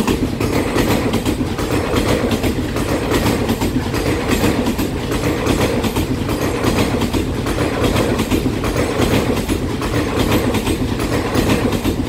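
TRA EMU3000 electric multiple-unit express train passing close by: a steady loud rumble of steel wheels on the rails, with a quick run of clicks as the bogies cross rail joints.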